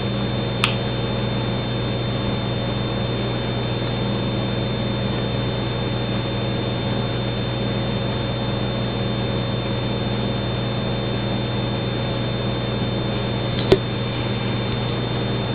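Steady electrical hum and hiss of background noise, with a sharp click about half a second in and another near the end.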